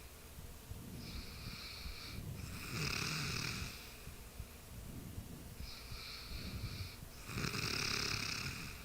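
A sleeping person snoring in a steady rhythm. Two breath cycles about four and a half seconds apart, each a shorter, softer sound followed by a louder, longer snore.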